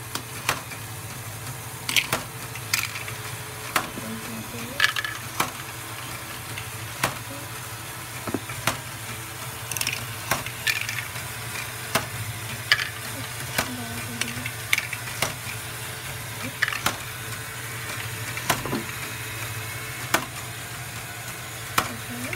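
LEGO Great Ball Contraption running: a steady hum from its LEGO M motors and gear trains, with irregular sharp plastic clicks and clacks as the mechanisms move and drop the balls, one or two a second.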